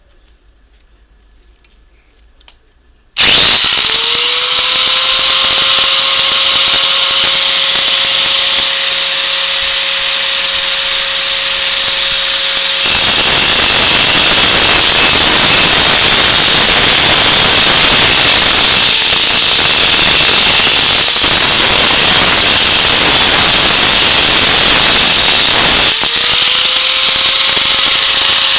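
Electric grinder switching on about three seconds in and spinning up to a steady whine. From about 13 s to 26 s the sound turns into a harsh, noisy grinding as the disc works against the metal piece, then it goes back to the free-running whine.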